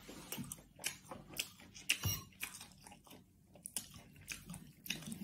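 Eating sounds: chewing, with scattered small irregular clicks, and a knife and fork cutting seared beef on a plate.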